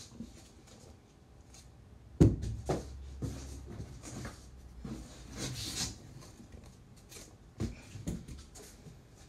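Handling noise from unpacking a boxed model train on the floor: a sharp thump about two seconds in, a few lighter knocks, and a burst of rustling packaging in the middle.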